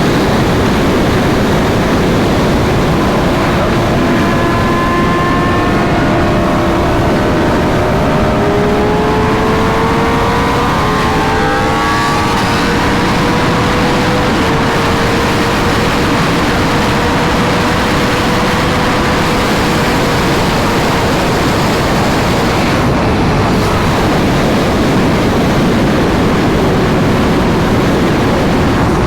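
Sport motorcycle engine running at highway speed under a heavy rush of wind noise. Its note climbs as it accelerates about a third of the way in, then holds steady. Another bike's engine briefly joins with a rising note.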